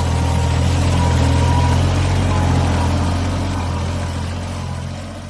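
Farm tractor's diesel engine running steadily as the tractor pushes soil and dry grass with a front dozer blade, fading out near the end.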